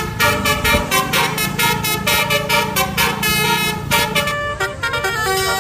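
Bus 'telolet' musical air horn playing a quick tune of short notes that change pitch several times a second, over a low engine hum that fades about four seconds in.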